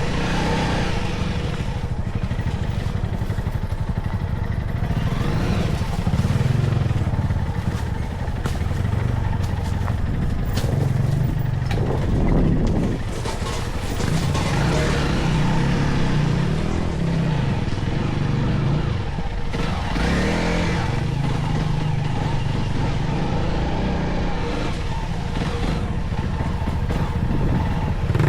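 Motorcycle engine running under way on an off-road trail, its note rising and falling as the throttle changes, with rough noise from the ride.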